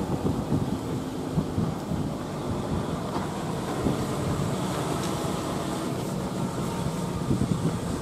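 Wind buffeting the microphone: a low, gusty rumble that is steadier in the middle and gusts up again near the end.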